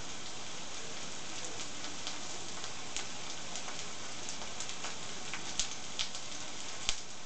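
Potato pancakes frying in hot oil in a frying pan on an electric hotplate: a steady sizzle with scattered crackles, and a few louder pops in the second half.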